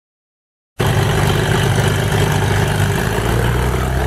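Silence, then about a second in a piston aircraft engine cuts in suddenly, idling with a deep, steady throb; its low beat settles into a steadier note about three seconds in.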